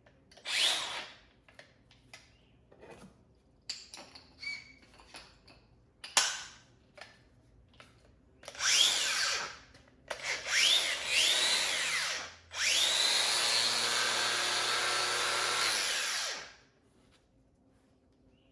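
Makita XAG26Z cordless brushless X-Lock angle grinder run free with no load. The paddle switch is blipped several times, each blip a quick rising whine as the motor spins up. It then runs steadily for about four seconds and cuts off. Light clicks of handling come between the runs.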